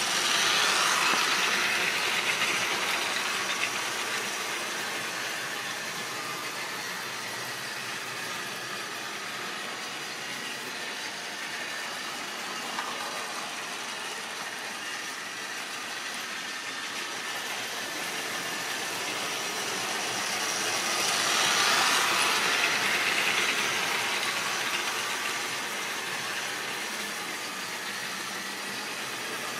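Model railway train running on the layout's track: a steady electric motor whir with wheels rattling over the rail joints. It swells louder twice, about a second in and again about three-quarters of the way through.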